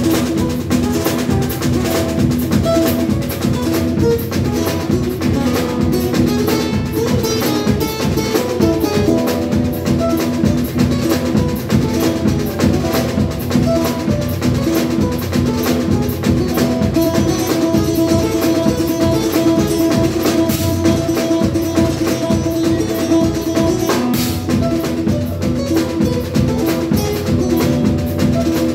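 Live band music built on a drum kit playing a steady, busy beat with snare and bass drum, over sustained pitched instruments.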